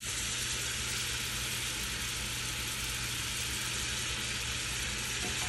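Rendered duck fat sizzling steadily in a pan with flour and butter just added, the start of a roux, over a steady low hum.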